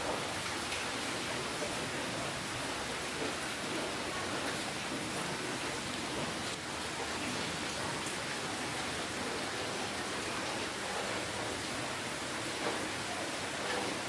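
Steady rainfall: an even hiss of many drops, unchanging throughout.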